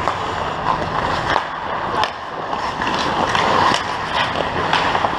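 Ice hockey skates scraping and carving across the ice, with sharp clacks of sticks and puck at irregular intervals.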